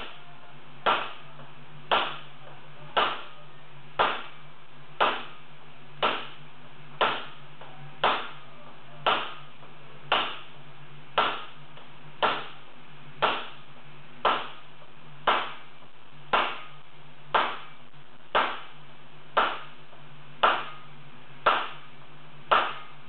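Hammer blows on a hot wrought iron anvil being forged, a sharp ringing strike evenly about once a second, over a steady low hum.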